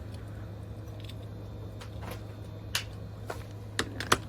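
A few scattered sharp metal clicks from a wrench and parts being handled while the alternator's pulley nut is tightened, over a steady low hum.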